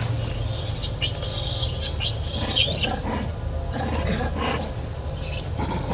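High-pitched calls from macaques: three in quick succession in the first three seconds, the third with a sliding pitch, and a shorter one near the end, over a steady low hum.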